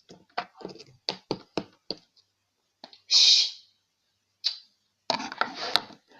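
Slime being squeezed and pressed by hand, making a run of sharp clicking pops. About three seconds in comes one louder, airy squelch, then a single click and a dense crackle near the end.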